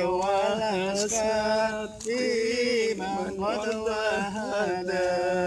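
A man singing an Arabic Islamic sholawat unaccompanied, in long held notes that waver in pitch.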